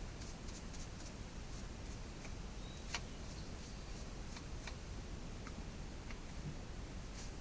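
Scattered light clicks and taps of chainsaw parts being handled during a chain change, with one sharper click about three seconds in, over a low steady background hum.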